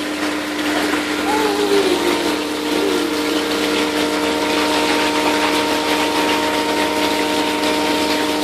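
Bath being filled from the tap: water pouring steadily into the tub, with a steady hum under the rush of water.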